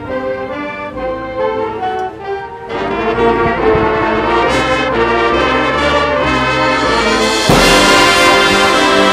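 Marching band playing its field show: brass chords over percussion, softer at first, then the full band swelling in about a third of the way through. A loud crash near the end opens the loudest stretch.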